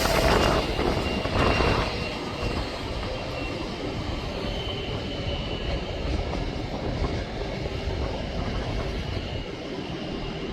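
Jet airliner engine noise: a steady broad rumble with a faint high whine, louder for the first two seconds and then holding level.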